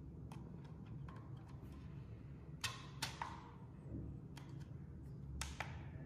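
Sharp plastic clicks from a mini portable air cooler's louver slats being pushed and moved into position by hand. Two louder clicks come about halfway through and two more near the end, with fainter ticks between, over a low steady hum.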